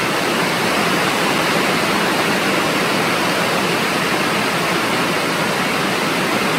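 Heavy rain falling: a steady, loud hiss that fills the sound.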